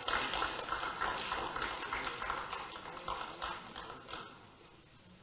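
Footsteps and light shuffling, a loose run of soft knocks that dies away about four seconds in.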